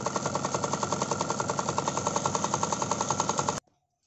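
Domestic sewing machine stitching a straight seam through layered cloth at a steady speed, with a rapid, even clatter of the needle mechanism that stops suddenly near the end.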